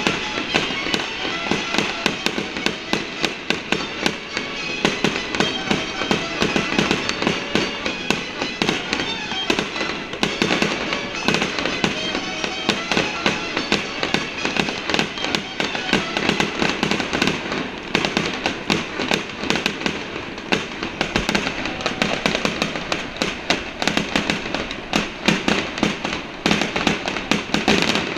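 Fireworks show: shells bursting in quick succession, a dense run of bangs and crackles throughout, with music playing alongside.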